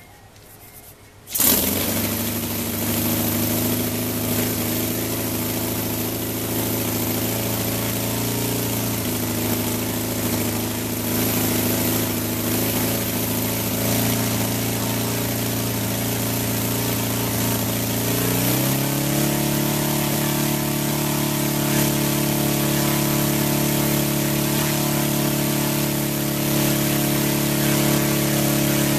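Saito FG-60R3 60 cc three-cylinder four-stroke radial petrol engine with spark ignition, catching suddenly about a second and a half in and then running at a steady low speed. About two-thirds of the way through its speed steps up a little and holds steady again.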